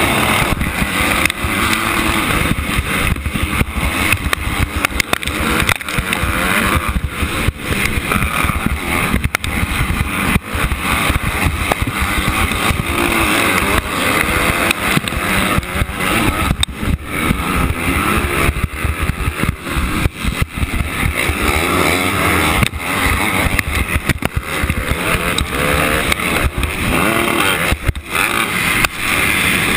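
Motocross dirt bike engine running hard during a race, its pitch rising and falling, heard from a helmet camera under heavy wind buffeting on the microphone, with other race bikes around.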